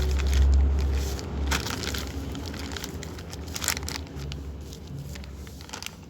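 Plastic packaging crinkling and crackling as it is handled and opened, in irregular bursts, over a low rumble that fades after about a second and a half.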